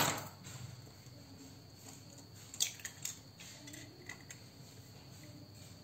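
An egg being cracked open into a bowl: a sharp tap right at the start, then a few light clicks of shell about two and a half seconds in and twice more around four seconds.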